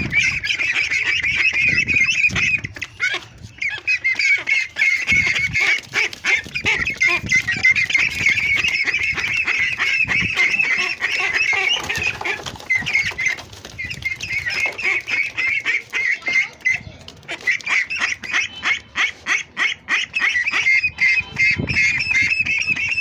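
A flock of ducklings peeping loudly in a dense, continuous chorus of rapid high calls, thinning for a moment a few times.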